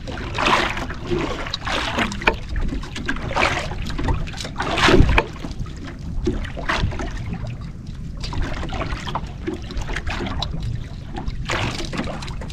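Small waves lapping and splashing against the hull of a small outrigger canoe, in irregular washes, the loudest about five seconds in.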